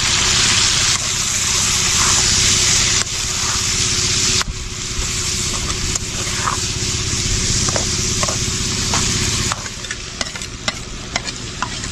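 Chopped tomatoes and garlic frying in a metal karahi, sizzling steadily while a metal slotted spatula stirs them. About three-quarters of the way through the sizzle drops, and the spatula's clicks and scrapes against the pan come through.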